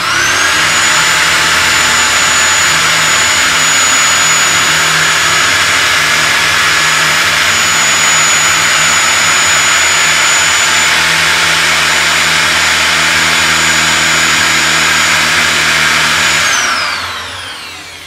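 Bosch GSB 550 corded impact drill running at full speed, drilling into a weathered wooden log: a loud, steady motor whine for about sixteen seconds. Near the end the trigger is let go and the motor spins down with a falling whine.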